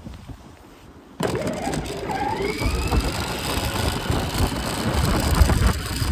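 12-volt Yamaha 700R ride-on toy ATV driving on asphalt: its electric drive motors whine, rising in pitch as it picks up speed, over the rumble and rattle of its plastic wheels on the pavement. The sound starts suddenly about a second in.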